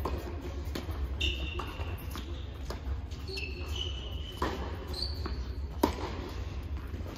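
Tennis balls struck by racquets in a doubles rally on an indoor hard court, several sharp pops echoing in the hall, the loudest near the end. Between the hits come short high squeaks of sneakers on the court, over a steady low hum.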